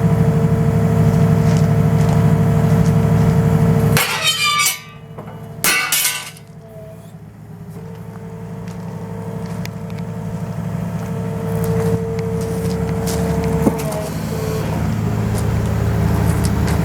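Hydraulic metal shear working under a running engine with a steady hydraulic whine. About four seconds in there are two loud sharp cracks as the jaws cut through metal. After the cut the engine note drops, then climbs back up steadily.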